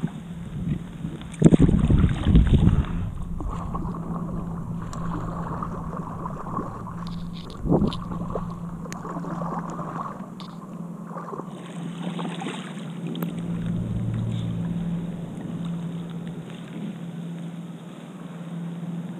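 Kayak paddle strokes, the blade dipping and splashing in the water, with wind on the microphone and a loud rumbling stretch about a second and a half in.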